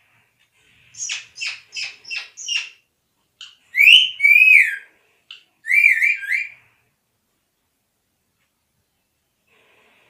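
Pet rose-ringed parakeet calling: a quick run of five short, sharp calls, then loud whistled notes that rise and fall, two longer whistles followed by three quick ones.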